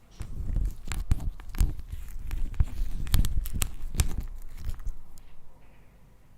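Slime being squeezed and stretched by hand, with wet squelching and a rapid run of sharp sticky pops and clicks for about five seconds before it fades.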